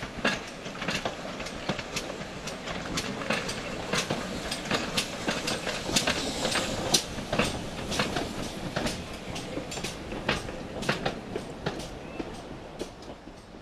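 GWR steam tank engine and its auto coaches passing close by, the wheels clicking steadily over the rail joints. It is loudest as the engine goes by about halfway through, then fades as the train draws away.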